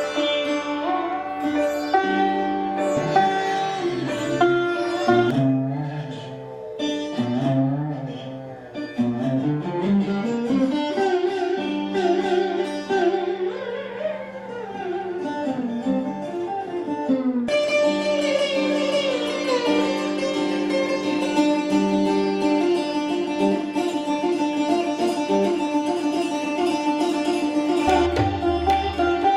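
Indian classical music on a plucked string instrument, the melody sliding between notes over a steady drone. Low drum strokes, likely tabla, come in near the end.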